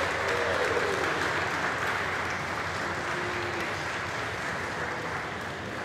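A small group applauding, the clapping slowly tapering off.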